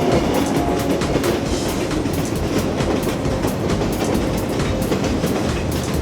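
Train running along the tracks: a steady rumble with the quick, uneven clicking of wheels over rail joints.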